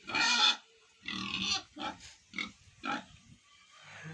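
Young piglets squealing and grunting: a string of about five short, harsh calls, the loudest right at the start.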